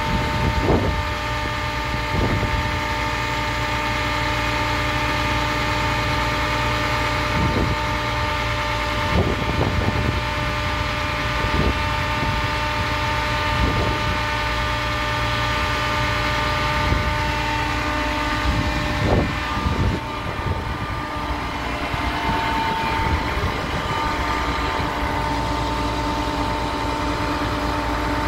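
Putzmeister truck-mounted concrete boom pump running, its truck engine driving the hydraulics with a steady hum that carries a few held tones. Short dull clunks from the machinery come every couple of seconds.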